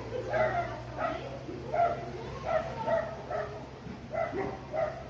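A dog barking repeatedly, about eight short barks at an uneven pace, over a steady low hum.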